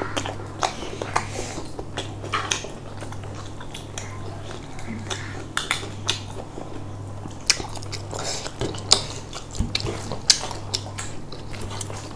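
Spoons clinking and scraping on plates, with chewing, in short irregular clicks over a steady low hum.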